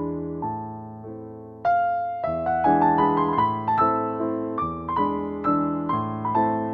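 Background piano music, gentle and melodic; it grows louder with new chords about a second and a half in.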